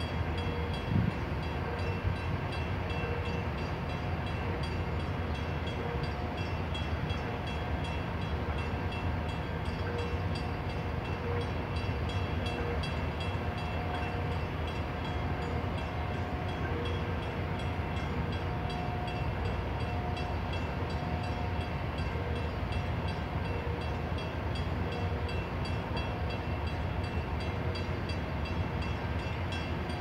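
Steady low rumble of idling engines, with faint humming tones above it that come and go.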